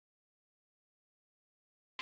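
Complete silence: the sound track is muted.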